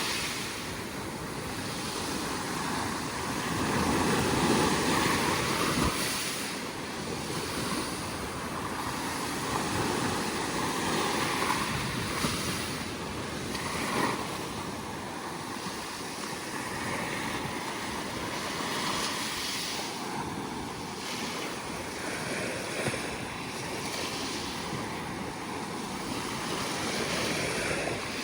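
Sea waves breaking and washing on the shore, rising and falling in surges every few seconds, with some wind buffeting the microphone.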